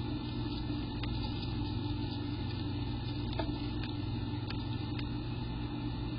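A steady low hum with an even hiss underneath and a few faint, scattered clicks.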